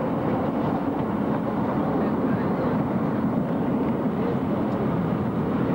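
Steady engine and road noise heard from inside a moving vehicle, a continuous rumble with a low hum.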